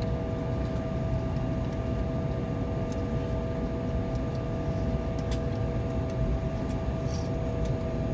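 Cabin noise of a jet airliner taxiing after landing: a steady low rumble with an even two-note hum from the engines at idle, and a few faint clicks and rattles.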